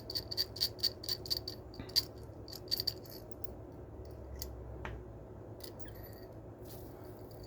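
Screwdrivers being handled, with quick light metallic clicks and clinks, several a second for about three seconds, then only a few scattered ones.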